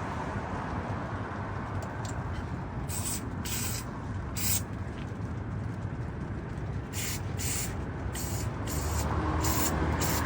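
An aerosol spray can with its straw fitted, giving a series of short hissing bursts of carburetor cleaner while the carburetor jets are cleaned out.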